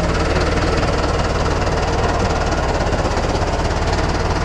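Tractor's diesel engine running steadily, heard from inside the cab, with a fast, even low throb.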